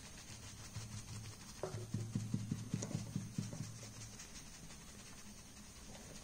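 Faint soft dabbing and rubbing of a folded tissue pressing a thin paper napkin onto a Mod Podge–coated plate, with a cluster of quick soft taps in the middle, over a low steady hum.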